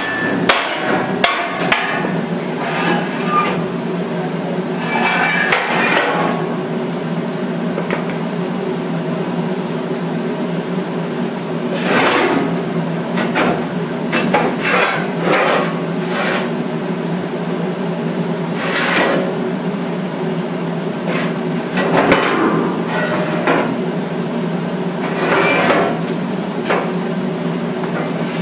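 Hammer blows on wood as the shipping skid is knocked apart under a CNC mill: a quick run of strikes at the start, then scattered knocks, over a steady hum.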